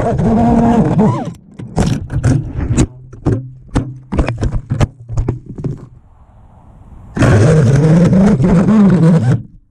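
A small FPV quadcopter crashing into a tree: its motor whine drops away, then a run of sharp knocks and clatters as it strikes branches. Near the end its motors spin up again for about two seconds with a wavering pitch and cut off suddenly.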